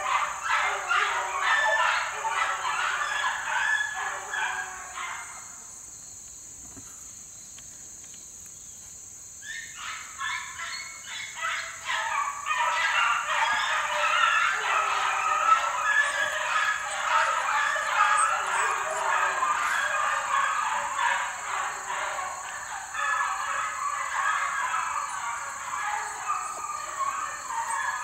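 A pack of young beagles in full cry on a rabbit's trail, many voices baying over one another. The cry fades out about five seconds in, picks up again about four seconds later, and carries on.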